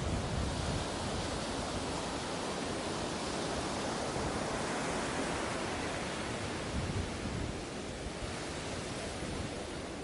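Sea waves washing onto a beach: a continuous rush of surf that swells through the middle and eases off a little near the end.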